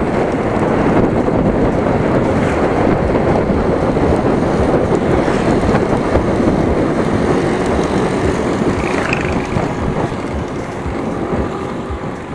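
Steady, loud rumbling rush of a bicycle ride over a rough off-road track, with wind buffeting the microphone.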